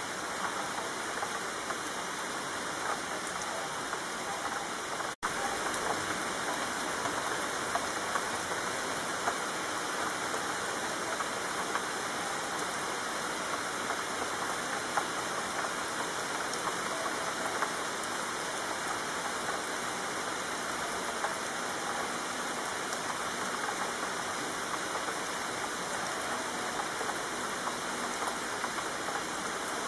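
Steady rain, an even hiss of many pattering drops, cut by a split-second gap about five seconds in.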